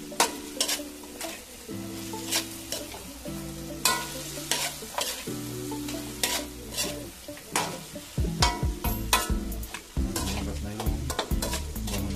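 A metal spoon scraping and clicking against an aluminium wok as chicken pieces are stir-fried, with the meat sizzling in the pan.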